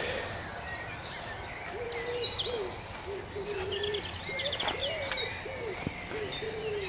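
Wild birds calling: a run of low, repeated, slightly arching calls from about two seconds in, with small birds chirping and trilling higher up.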